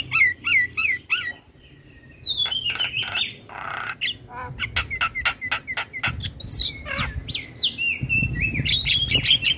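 Javan mynas (jalak kebo) calling: looping, gliding whistles mixed with harsh chattering and rapid clicking notes, with a short lull about a second and a half in.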